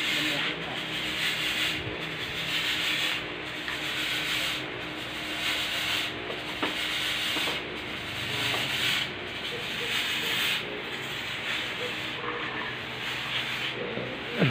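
Thermal fogging machine running steadily, a continuous rasping hiss that swells and dips about every second and a half.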